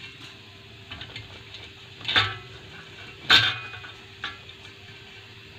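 Roti crumbs being rubbed by hand through a strainer over a steel bowl: a soft rustling scrape with light ticks. Two sharp knocks come about two and three seconds in.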